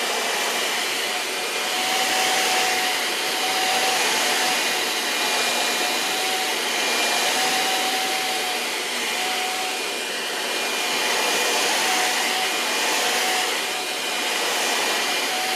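Steady rush of air from a small motor-driven appliance, with a faint high hum on top, its loudness rising and falling a little.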